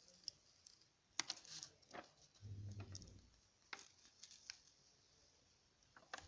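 Faint, scattered clicks and rustles of paper being handled close to the microphone, with a soft low bump about two and a half seconds in.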